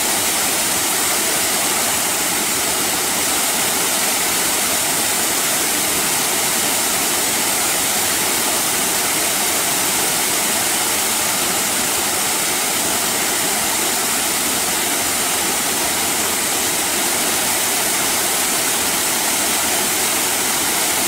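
Small waterfall pouring onto rocks and into a plunge pool: a steady, unbroken rush and splash of falling water.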